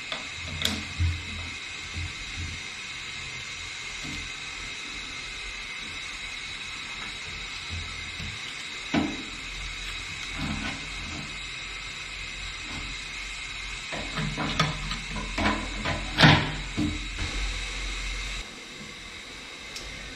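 Small metal hand tool scraping and clicking against a bathtub's overflow opening while the old, rotted overflow gasket is pried out, in scattered short scrapes and knocks that come thicker and louder in the last few seconds. A steady hiss runs underneath.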